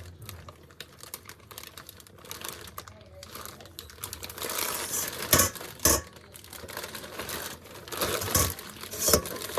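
Plastic packaging crinkling and rustling as a large raw octopus is handled, with a few sharp knocks about five and six seconds in and again near the end.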